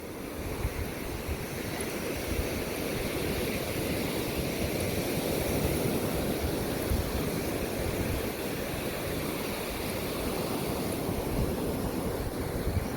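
Ocean surf: waves breaking and washing up the sand in a steady rush that swells during the first few seconds.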